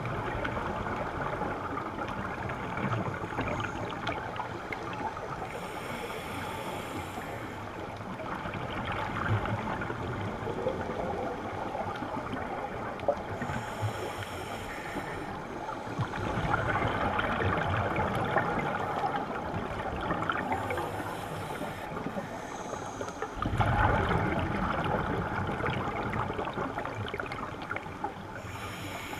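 Scuba breathing heard underwater: the regulator hisses on each inhale, then exhaled bubbles rush and gurgle out, the cycle repeating roughly every seven seconds.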